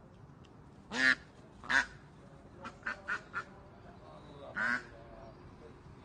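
A white domestic duck quacking in short, harsh calls: two loud quacks near the start, a quick run of quieter ones in the middle, and one more loud quack near the end.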